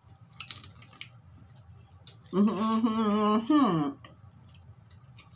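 A woman's muffled voice through a mouthful of taco, one drawn-out, hummed-sounding utterance about two seconds in that holds a steady pitch for over a second and drops at the end, with soft chewing and mouth clicks around it.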